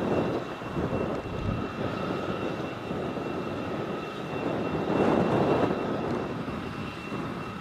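Boeing 777 jet engines running as the airliner taxis: a steady rumble with a thin, high, steady whine over it, swelling a little about five seconds in.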